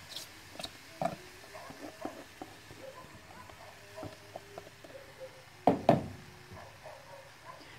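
Grated apple being scraped from a plastic container into a frying pan with a silicone spatula: soft scrapes and light taps, with one louder knock about six seconds in.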